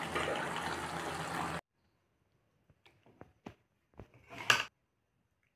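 Curry simmering in a wok, a steady bubbling hiss that cuts off abruptly about a second and a half in. After that, a few faint clicks and one brief louder knock near the end.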